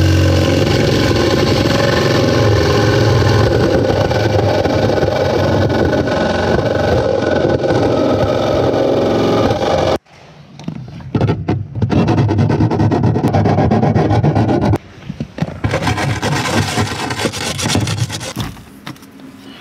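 Makita cordless drill driving a hole saw through a car's sheet-steel firewall: the motor spins up, then the saw teeth give a steady, loud grinding as they cut the metal for about ten seconds. After an abrupt break comes more uneven, loud cutting and scraping, and near the end lighter scraping strokes as the edge of the new hole is worked by hand.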